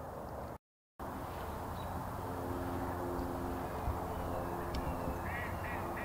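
Ducks quacking in the distance over steady background noise, with a quick run of short calls near the end. The sound drops out briefly about half a second in.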